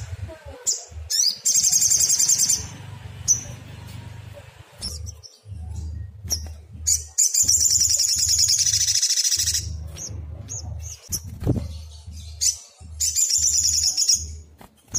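Sunbird singing: high, rapid trills in three long bouts with short chips between them, over a low hum.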